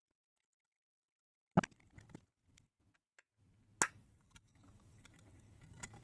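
Plastic clicks and taps from the shaver's hard plastic housing and circuit board being handled and pressed together: a sharp click about a second and a half in, another near four seconds, with smaller taps between.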